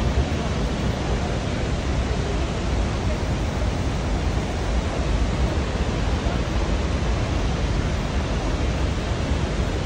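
Niagara's Horseshoe Falls, heard close up: a loud, steady rush of falling water with a deep rumble underneath.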